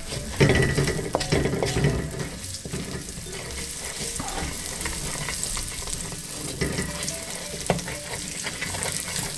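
Curry powder frying in the fat left in a pan from browning lamb, sizzling on a low heat while a utensil stirs and scrapes it, with scattered clicks against the pan. Louder in the first couple of seconds.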